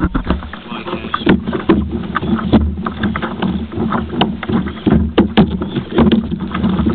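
Water slapping and splashing against a kayak's hull as it moves, with many irregular knocks over a steady low rumble.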